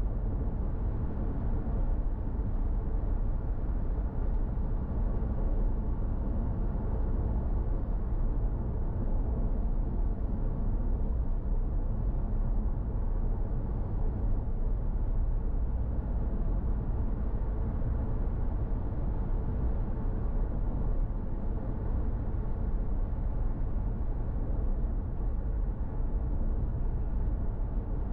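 Steady low rumble of a car's engine and running gear, heard from inside the cabin.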